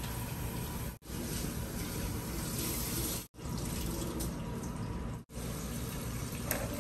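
Steady rushing hiss that cuts out briefly three times.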